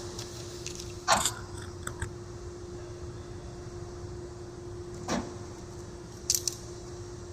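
Four brief knocks and scrapes of sheet-metal pieces or tools being handled, over a faint steady hum.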